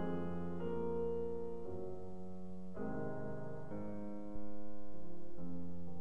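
Background piano music: slow sustained chords changing every second or so, with a louder chord struck about four seconds in.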